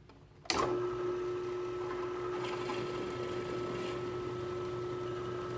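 Bench drill press switched on about half a second in, its motor then running steadily with a constant whine and hum.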